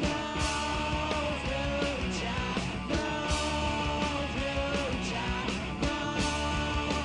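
Punk rock band playing live: electric guitar, bass guitar and drums, with repeated cymbal hits through the music.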